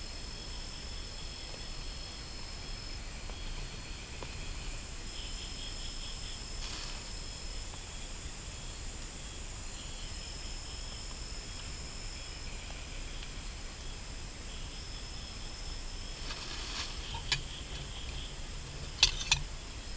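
Night insects in tropical forest chirring steadily: a high trill that comes in stretches of a few seconds with brief gaps, over pulsed chirping. Near the end, a sharp clink of a metal spoon against a metal bowl, then a quick pair of clinks.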